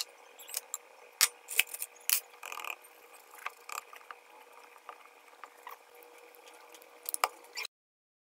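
Hands mixing flour and egg yolks into pasta dough in a mixing bowl: scattered taps, clicks and scrapes of fingers and the bowl rim, over a faint steady hum. The sound cuts off suddenly a little before the end.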